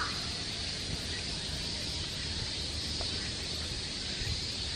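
Steady outdoor ambience: a constant high insect drone over a low rumble of wind.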